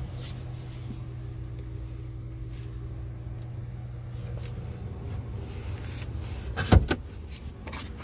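Steady low hum inside a 2017 Jaguar's cabin, broken about seven seconds in by a sharp double clunk as the driver's door is unlatched and opened.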